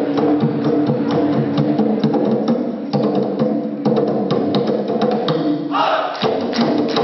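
Dikir barat music: traditional Malay percussion keeps a fast, steady beat of sharp clicking strikes over sustained low tones. A high pitched voice-like note joins near the end.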